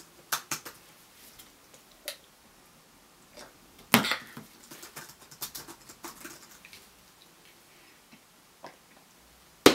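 Scattered light taps and clicks from typing on a laptop keyboard and handling a travel mug in a small room. A louder knock comes about four seconds in as the mug is lifted off a book, and a sharp click comes near the end.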